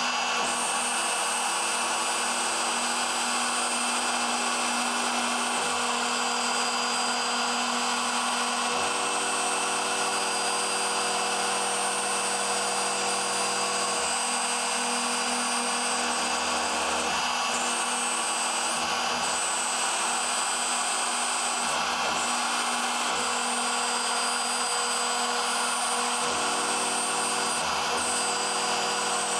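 CNC portal router milling out a part: the spindle's steady high whine and the cutter's noise, with a lower motor hum from the axis drives that changes pitch every few seconds as the tool changes direction.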